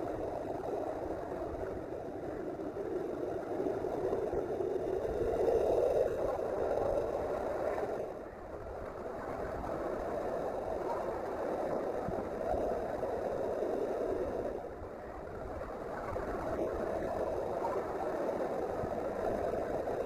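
A4 Pacific steam locomotive running at speed with a train: a steady rushing noise with no separate exhaust beats. It dips briefly about eight seconds in and again about fifteen seconds in.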